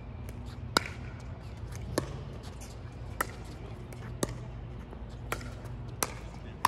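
Doubles pickleball rally: paddles hitting the hollow plastic ball and the ball bouncing on the hard court make sharp pocks about once a second, over a steady low background hum.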